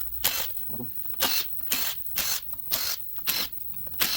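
Hand ratchet clicking in quick back-and-forth strokes, a short rattle of clicks about twice a second, as bolts are run out of an LS V8 engine.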